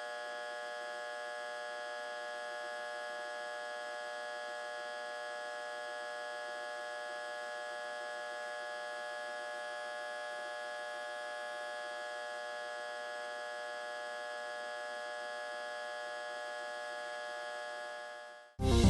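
Electrical transformer humming: a steady buzzing hum that fades out near the end.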